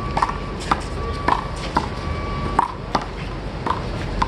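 Small rubber handball being slapped by hand and smacking off a concrete wall in a one-wall handball rally: a string of sharp smacks, about eight in four seconds.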